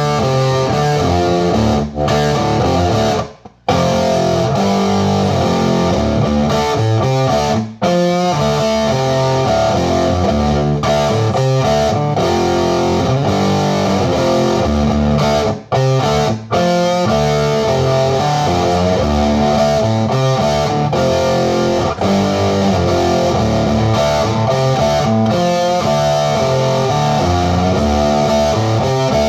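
Electric guitar played through a hand-built JCM 800-style tube amp into a Mesa 2x12 cabinet, phone-recorded. Riffs play steadily, with a few brief stops.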